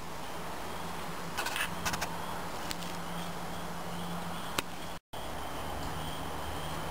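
Steady outdoor background hiss with a low hum, broken by a few light clicks from a fixed-blade knife being worked on a wooden stick, most of them about a second and a half in. The sound cuts out completely for an instant about five seconds in.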